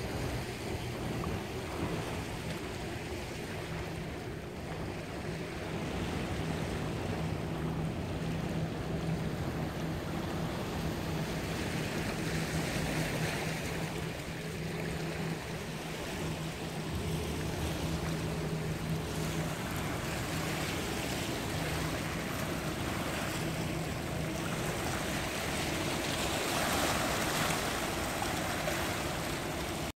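Small river waves washing and lapping over a rocky shore in a continuous even wash, with a steady low hum underneath that fades out near the end.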